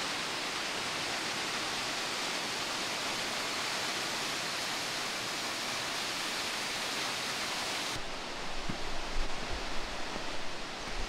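Steady rushing hiss of waterfall water. About eight seconds in it gives way to a duller, uneven rustle with a few soft low knocks, as of footsteps climbing stone steps.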